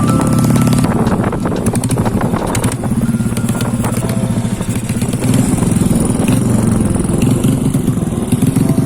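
Suzuki Smash 110 motorcycle's single-cylinder four-stroke engine running while the bike is ridden, dipping slightly in level a couple of seconds in before picking up again.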